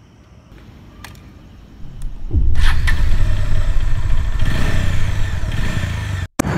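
Motorcycle engine starting about two seconds in and then running loudly. A faint click comes before it, and the sound cuts out briefly near the end.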